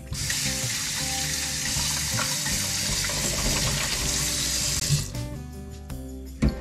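Kitchen tap running into a sink, turned off about five seconds in; a single knock just before the end.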